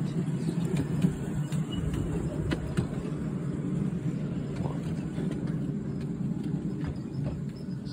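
Miniature railway train running along its track: a steady rumble of wheels on rail with scattered short clicks.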